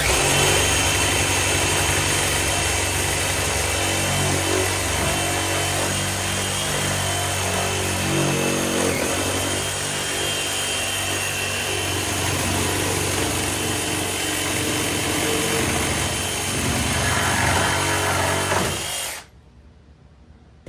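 Handheld power tool running steadily, taking a thin nibble of wood off a wooden foundation beam so it fits its notch; it stops abruptly near the end.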